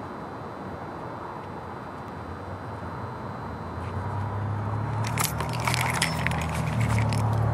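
Steady outdoor background noise, then from about five seconds in a run of clicks, knocks and rubbing as a Canon HF M-series camcorder is picked up and handled.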